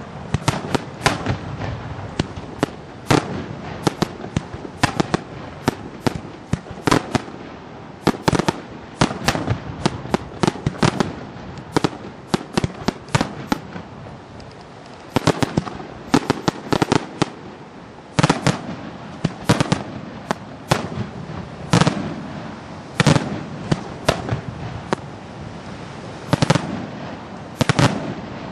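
Daytime aerial fireworks bursting overhead: rapid, irregular volleys of sharp bangs with echo trailing after them, thinning briefly around the middle before picking up again.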